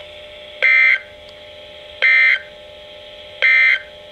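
Three short bursts of EAS/SAME digital data tones, the end-of-message code that closes a National Weather Service warning broadcast. Each burst lasts under half a second, about a second and a half apart, over a faint steady hum.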